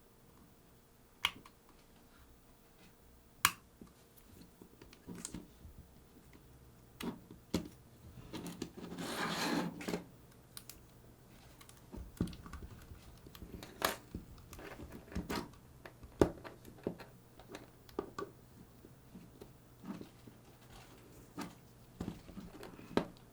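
Scattered small clicks and taps of parts being handled while the hard drive is taken out of a camcorder's recording unit, with a longer scraping rustle about nine seconds in.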